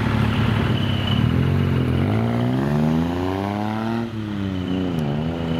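Truck engine running steadily, then revved: its pitch climbs for about a second and a half, falls back, dips once more and starts rising again near the end.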